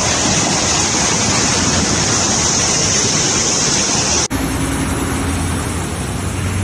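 Torrent of floodwater rushing down a street, a loud, dense, steady rush of water. About four seconds in it changes abruptly to cars driving through a deeply flooded road, water splashing, with a low steady engine hum underneath.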